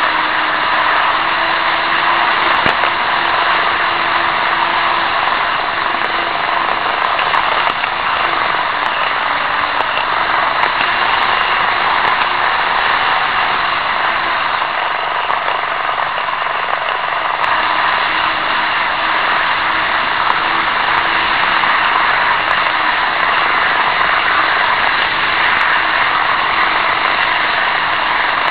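N-gauge model trains running on the layout, heard close-up through a keychain camera riding on a wagon: a steady, loud whir of wheels on rails with a faint wavering motor hum.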